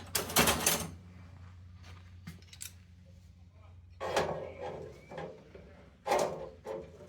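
Steel parts being handled and set down, giving short clanks and scrapes in four bursts, over a steady low hum.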